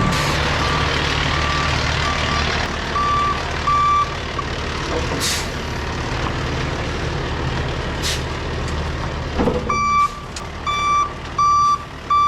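Concrete mixer truck's diesel engine running as it backs in, its reversing alarm beeping a little more than once a second, faint at first and much louder over the last couple of seconds. Two short hisses of air are heard partway through, typical of the truck's air brakes.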